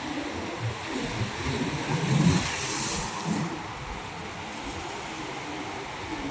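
Ocean waves washing over rocks at the shore: a steady wash of surf, with one wave surging in a hiss about two seconds in that fades by the middle.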